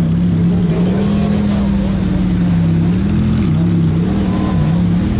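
Novitec-tuned Ferrari F430's V8 engine running steadily at low revs. The revs rise slightly about a second in, settle back, then lift briefly two or three times with light throttle blips in the second half.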